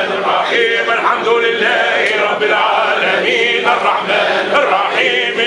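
Men's voices chanting together in an Islamic religious chant, Sufi devotional singing, with held, wavering notes sung continuously.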